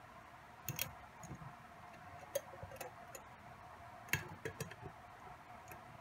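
Glass lid of a wire-bail clamp jar being handled and set onto the jar's glass rim: a few scattered light clinks and clicks of glass and wire, the sharpest about four seconds in.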